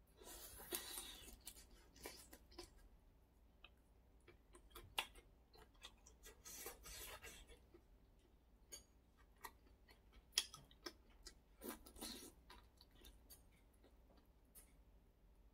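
Faint, close-miked chewing of a shrimp from a bowl of malatang, with many small wet mouth clicks and a few soft breathy hisses.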